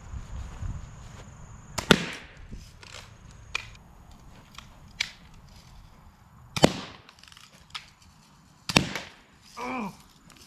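Daisy Red Ryder lever-action BB gun being shot at balloons: three loud sharp cracks, about two seconds in, near the middle and near the end, with lighter clicks between them.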